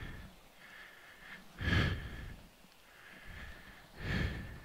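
A man breathing hard, two loud heavy breaths about two and a half seconds apart, from the effort of manhandling a loaded motorcycle.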